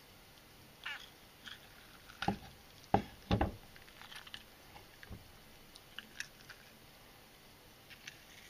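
A fish being gutted by hand on a wooden cutting board: scattered wet squelches and small clicks as fingers pull out the innards. Between about two and three and a half seconds in come a few sharper knocks as the knife is laid down on the board.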